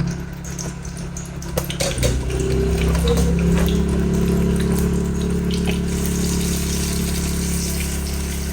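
A motor running with a steady, even-pitched hum that picks up and settles about two seconds in, with a rushing hiss over it.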